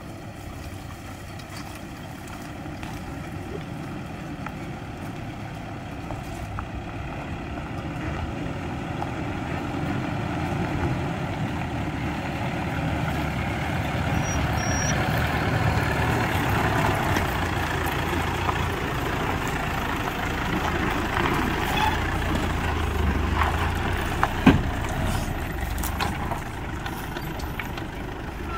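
Toyota Hilux camper truck crawling down a rough dirt track at low speed, its engine growing louder as it approaches and then running steadily close by. A single sharp knock comes near the end.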